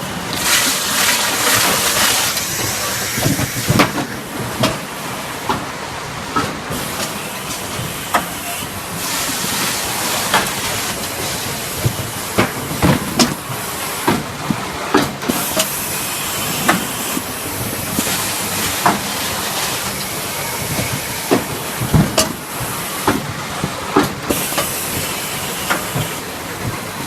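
Automatic bottle filling and packing line running: steady machine noise with bursts of pneumatic air hiss and frequent irregular clacks and knocks of bottles and mechanisms.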